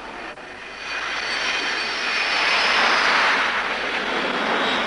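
Sukhoi Su-33 carrier fighter's jet engines as it passes low on landing approach, gear and hook down. The jet noise swells to a peak about three seconds in, with a faint high whine over it, then fades away.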